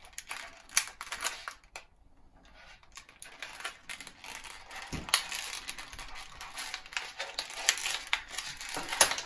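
Clear plastic packaging crackling and crinkling as it is worked open and pulled off a blister tray of model parts, with many sharp snaps and clicks. The packaging is stubborn to remove.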